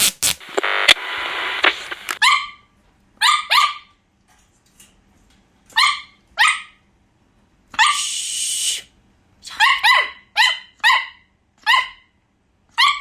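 A puppy of about two months barking in about a dozen short, high yaps, some in quick pairs and runs, begging for food it can't get. A noisy rustle in the first two seconds and again about eight seconds in.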